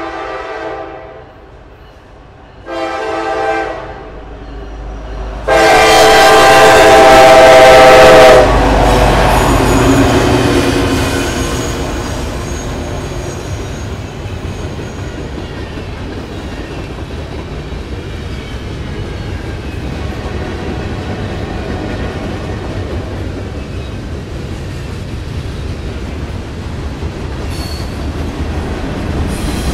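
Diesel locomotive horn on a Norfolk Southern freight train: the tail of a long blast, a short blast, then a long, loud blast, the close of a grade-crossing signal. The train then rolls past, with steady rumbling wheel noise and clickety-clack from the freight cars.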